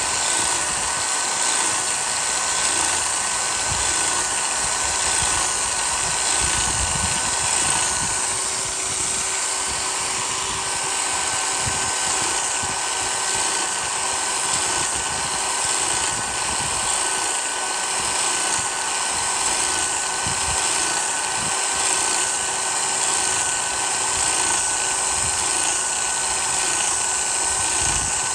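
Biax power scraper running steadily, its reciprocating blade stroking across the cast iron slide ways of a lathe compound to cut a crosshatch scrape pattern. A steady high whine runs over the noise of the strokes, and a lower tone joins in about a third of the way through.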